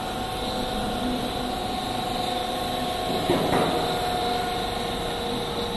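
Snack food extrusion line running: a steady machine hum from its electric motors with a held whine on top, and a brief louder rushing swell about halfway through.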